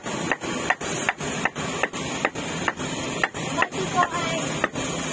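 Cleaver chopping meat on a wooden chopping block, in even strokes about two and a half a second, each with a short ring, over a steady background hiss.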